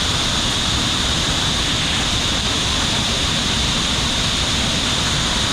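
Waterfall: heavy falling water making a loud, steady, unbroken rush.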